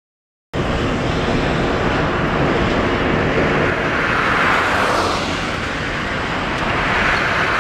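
Boeing 787-9 jet engines running at takeoff power: a loud, steady roar that starts suddenly about half a second in and swells slightly twice.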